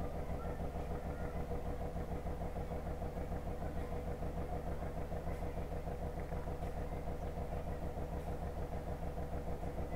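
An engine idling steadily, a low, evenly pulsing drone that does not change.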